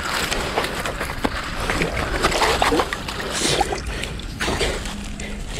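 Water splashing and sloshing around a giant trevally as it is lowered into the shallows and held for release, the fish stirring the water.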